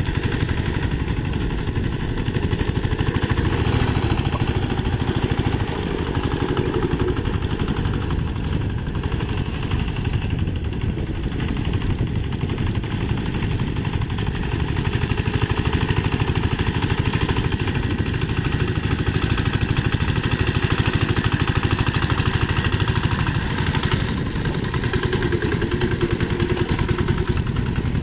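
Single-cylinder diesel engine of a two-wheel hand tractor running steadily under load, a fast, even chug as it pulls a rake through paddy mud.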